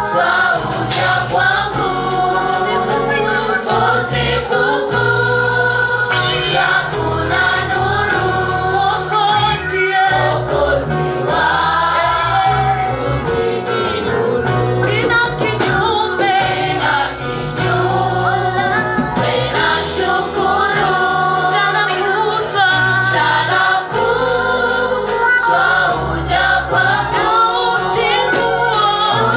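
A choir singing a gospel praise song with a band accompanying, steady bass and drums under the voices.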